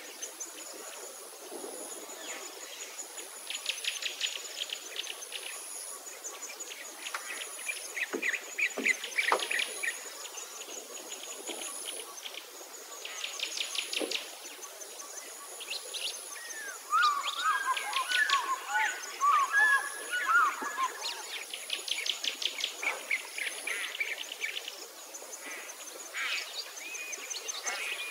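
Several wild birds singing and calling, with many short rapid trills and a louder chattering warble from about 17 to 21 seconds in. A faint high chirp repeats about every two seconds behind them.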